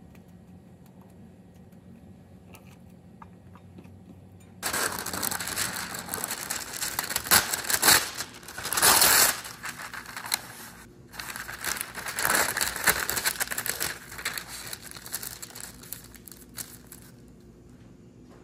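Parchment paper crinkling and rustling as it is pulled off the roll and spread on the counter, starting suddenly about five seconds in and running in two long spells with a short pause between, then dying away near the end.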